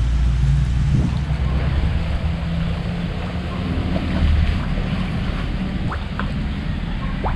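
Steady rushing wind noise on the microphone with a heavy low rumble.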